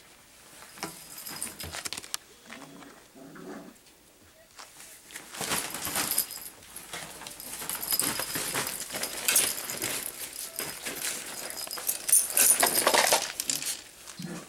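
A Border Collie puppy scrabbling at a nylon play tunnel, making a loud crinkling rustle from about five seconds in until near the end. A few short, soft puppy whines come before it.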